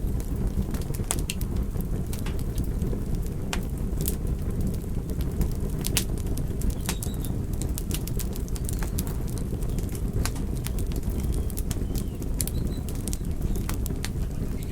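Wood fire burning in a fireplace: a steady low rumble with irregular, sharp crackles and pops from the logs.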